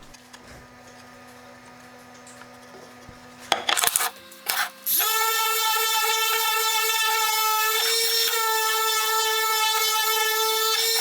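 A few sharp knocks, then an electric woodworking power tool spins up about five seconds in and runs at a steady high-pitched whine.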